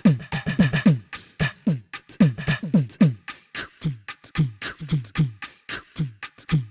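Sampled drums from the Ketron SD90 SF2 drum library playing a busy pattern of quick strikes; the deep hits drop in pitch as each one dies away, with sharp, bright hits in between.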